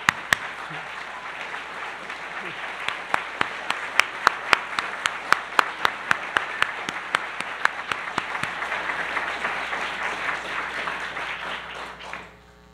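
An audience applauding steadily, with one person's sharp claps loud and close over the general clapping; the applause dies away near the end.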